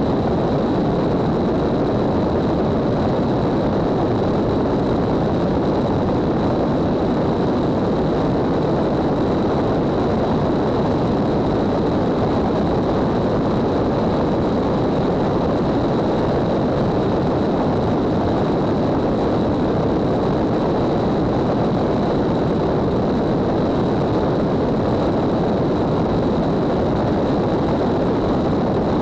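Steady rush of wind and engine-propeller drone from a light aircraft in level cruise, picked up by a camera mounted under the wing, with a thin steady high whine running throughout.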